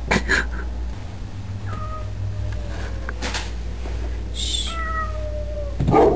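Bengal cat yowling at a dog on the other side of the glass: two long, low, drawn-out calls, each sliding slightly down in pitch, with a short hiss between them. A loud, harsh outburst comes near the end.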